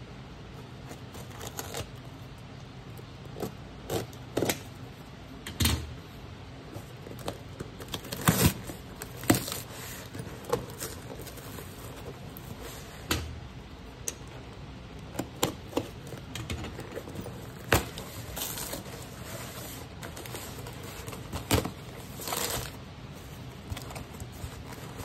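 A taped cardboard parcel slit with a utility knife and torn open by hand, its contents then handled: an irregular run of scrapes, crinkles and sharp clicks of cardboard and packing tape.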